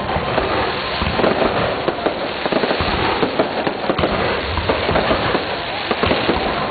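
Fireworks display: a dense, unbroken run of bangs and crackling from aerial shells bursting overhead.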